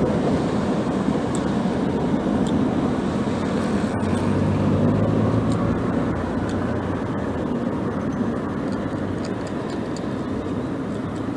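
Steady wind and road rumble on a camera riding along on a moving bicycle, among traffic. A low hum swells briefly about four seconds in.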